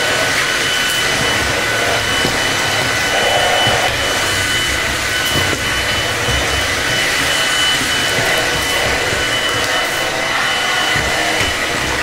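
Xiaomi G11 cordless stick vacuum running with its powered main brush on tile: a steady rush of air with a high, steady motor whine on top.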